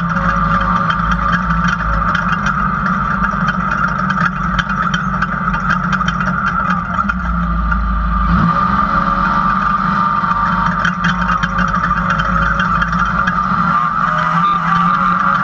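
Off-road race car's engine running loud under load, heard from inside the open cockpit, with the chassis rattling over rough dirt. About eight seconds in, the engine revs up in a quick rising sweep and then holds steady.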